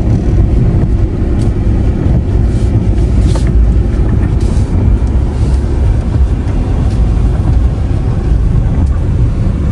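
Steady low rumble of a car's engine and road noise, heard from inside the cabin while driving slowly.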